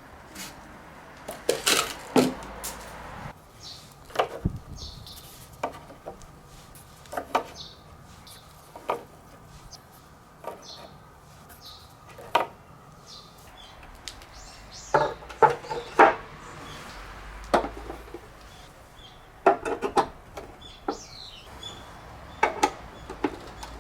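Marbles rolling down a handmade wooden slope and through a hose, clacking and knocking against the wood in irregular runs of sharp clicks, with clusters of rapid knocks now and then.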